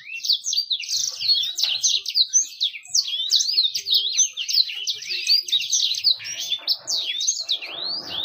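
Canary singing a long, unbroken song of rapid trills and sweeping chirps.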